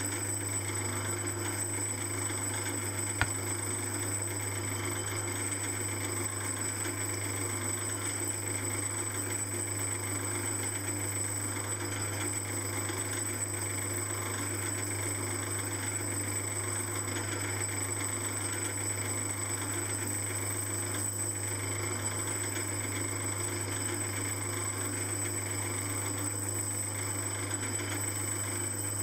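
Small metalworking lathe running steadily, spinning a flywheel during a light skimming pass to clean etch marks off its face: a steady low hum with a faint high whine, and one sharp click about three seconds in.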